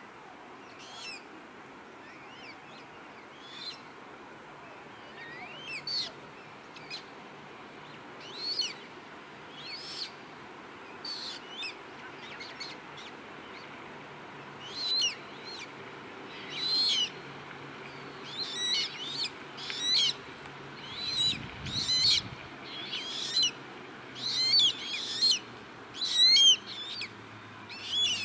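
Juvenile rails calling with short, thin, high-pitched notes that bend in pitch. The calls come a few seconds apart at first, then faster and louder in the second half, several a second near the end.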